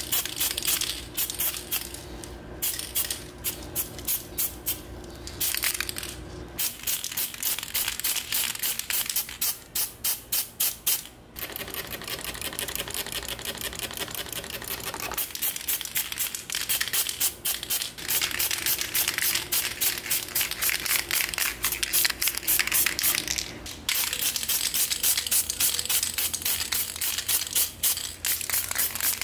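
A sprayer coating small model-car parts, hissing in rapid, evenly spaced short bursts with a few brief pauses. A low steady hum runs underneath.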